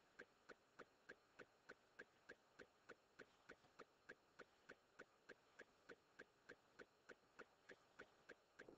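Near silence with a faint, even ticking, about three ticks a second.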